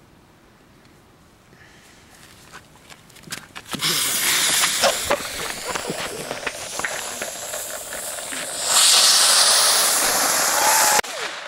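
Homemade rack of bottle rockets and other fireworks burning: a quiet fuse sputter at first, then a loud, steady hiss of spraying sparks with scattered crackles about four seconds in. The hiss grows louder near the end and cuts off abruptly.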